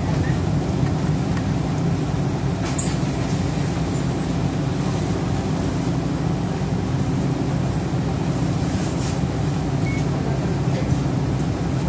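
Inside a city bus: steady engine hum and road noise as the bus slows and comes to a stop. The engine then idles while it stands at the stop, with a couple of brief clicks.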